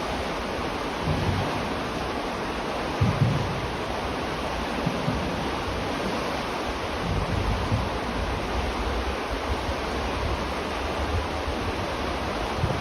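River water rushing in a steady, even wash, with a few brief low rumbles of wind on the microphone.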